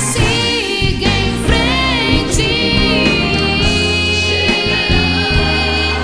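A gospel song: a woman's voice singing long, gliding held notes over a band accompaniment with a steady bass.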